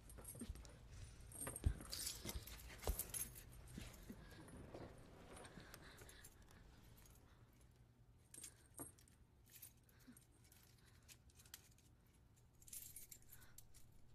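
Metal chain rattling and clinking in faint, scattered clinks, the loudest about two seconds in and another cluster near the end.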